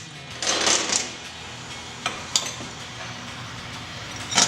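Hand wrenches clinking and scraping against metal fuel-line fittings as a backing wrench is set in place: a rattling scrape about half a second in, two light clinks around two seconds, and a louder clank near the end.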